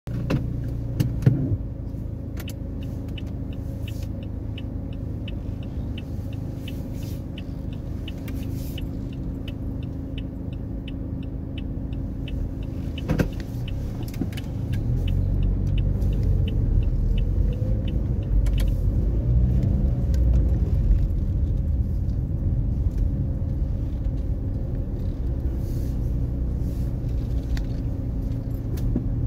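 A car heard from inside the cabin, first idling with a steady low hum and a fast, even ticking of about four clicks a second. About halfway through the car pulls away, and the engine and road rumble grow louder, with the engine's pitch rising now and then.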